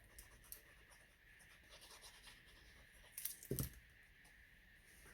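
Faint paper handling: light rustling and scratching of card stock, with a crisper rustle and a soft tap on the work surface about three and a half seconds in.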